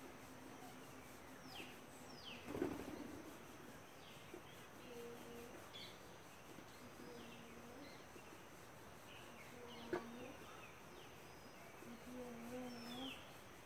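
Birds chirping: many short, high, downward-sweeping calls scattered throughout, over a low hum that comes and goes in short stretches, with a soft thud about two and a half seconds in.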